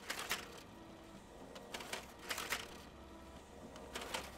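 Office multifunction printer running: a faint steady whir with a few short rustling, clattering bursts from its mechanism, about one every second or so.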